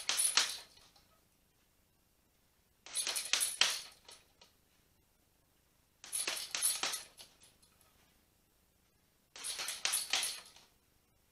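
Boxing gloves striking a hanging heavy bag in quick 1-2-3-4 combinations (jab, cross, lead hook, rear uppercut). There is one burst of punches about every three seconds, four bursts in all.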